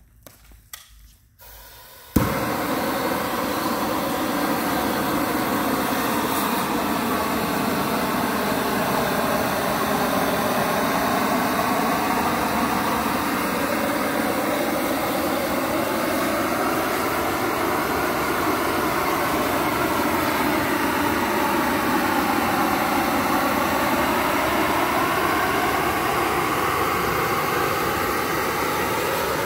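A shrink-wrap heat torch's burner starts suddenly about two seconds in, then blows steadily. Its tone wavers slowly as the heat is swept back and forth over the shrink wrap on the pallet.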